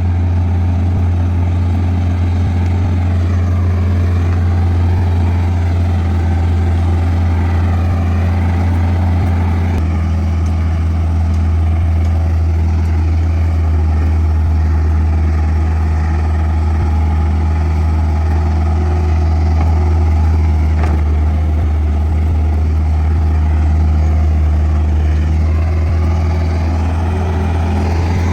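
Komatsu bulldozer's diesel engine running steadily as the dozer works, a deep even drone that shifts slightly in pitch about ten seconds in.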